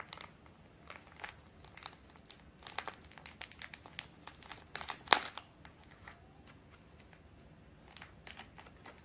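Thin plastic packaging around a bundle of nylon stockings crinkling and tearing as it is worked open by hand. It comes as an irregular run of sharp crackles, thickest and loudest about five seconds in, then sparser.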